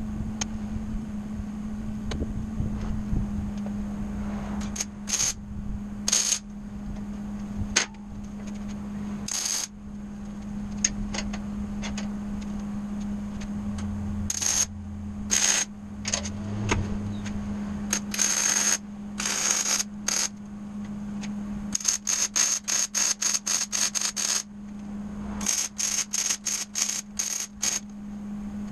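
Arc welding on steel unistrut channel: short bursts of arc crackle in the first half, then quick runs of stitched tack welds, the arc switching on and off about six times a second, over a steady low hum.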